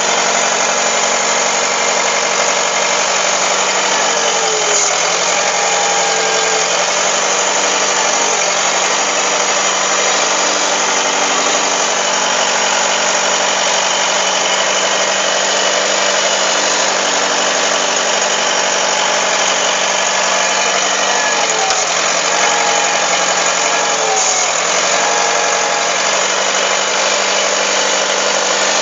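D30A bulldozer's diesel engine running steadily, its pitch dipping briefly about four times and recovering as the engine takes load, in keeping with the hydraulics being worked.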